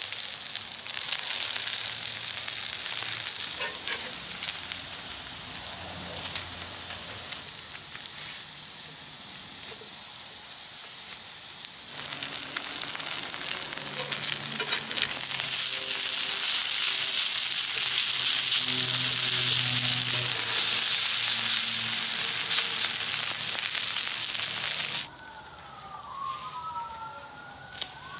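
Shredded potato and crab-stick pancakes frying in oil in a cast-iron pan: a steady sizzle that grows louder about halfway through and stops suddenly near the end. After it, a few faint whistling tones glide up and down.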